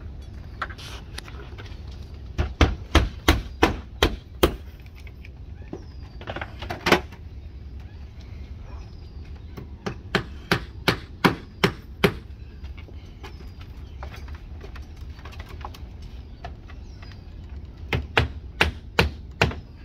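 Hand hammer driving nails through the nailing flange of a vinyl siding corner post into a wooden wall, in three runs of quick strikes at about three a second, with a single blow between the first two runs.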